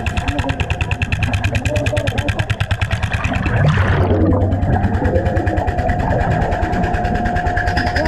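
Underwater jackhammer hammering in fast, even pulses, about ten a second, as the diver works at the chipping bit wedged between concrete and steel rebar. It stops about four seconds in after a short rush of noise, leaving a steadier low rumble. A steady high tone runs underneath.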